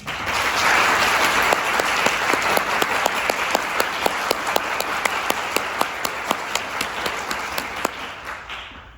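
Audience applauding, starting all at once and dying away near the end, with single claps standing out more as it thins.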